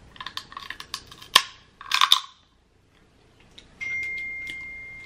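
Dungeness crab shell crunching and cracking as it is bitten and broken open, with a sharp crack about a second and a half in. About four seconds in, a phone's text-message alert sounds: a single high ringing tone that fades slowly.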